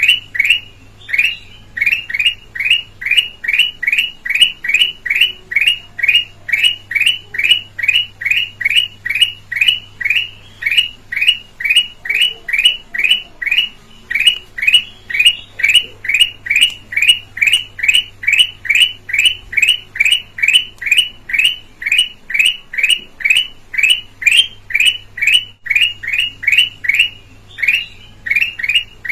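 Kutilang emas, a golden bulbul, calling: one clear, quick downward-slurred note repeated very regularly, about two and a half times a second, with a few short breaks. It is a lure recording meant to draw in and stir up other birds.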